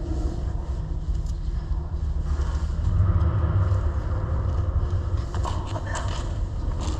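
Steady low rumble carrying through a concrete drain tunnel, swelling about three seconds in, with a few short knocks near the end.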